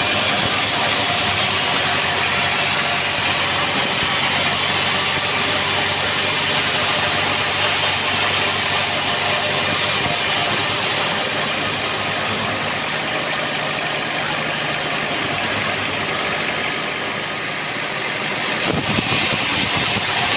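Homemade bandsaw sawmill running: a steady engine hum under a loud, even hiss, with the sound shifting near the end.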